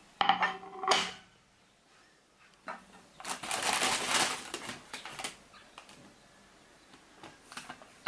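Ceramic plates set down on a marble tabletop, a clatter with brief ringing about a quarter-second in and again just before a second in. This is followed by several seconds of rustling and light clinks as the breakfast table is laid, then a few small clicks near the end.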